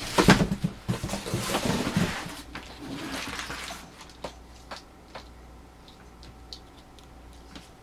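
Rustling and knocking handling noise for about four seconds as the sewing machine's power cord is handled and plugged in, then a few faint clicks.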